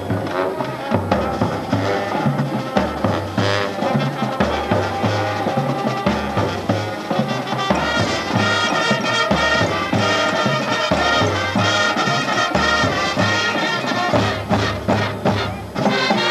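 High school marching band playing: brass horns and sousaphones over a steady bass-drum beat. The brass settles into sustained chords about halfway through, with short punched hits near the end.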